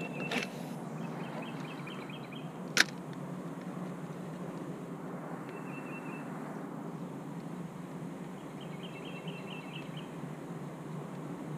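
A spinning rod and reel being cast and retrieved. There is a swish of the cast near the start and a single sharp click about three seconds in as the reel's bail snaps shut, then the reel is wound in over a steady low hum.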